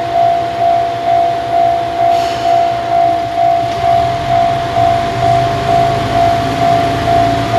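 Level crossing alarm bell ringing in an even, steady rhythm of about two strikes a second. Under it a diesel railcar's engine runs, growing louder and rising in pitch during the second half as the railcar pulls away.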